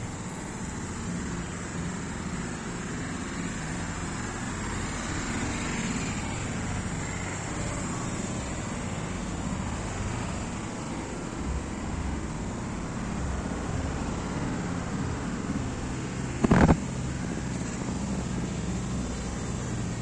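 Steady hum of road traffic, with one short loud sound about sixteen and a half seconds in.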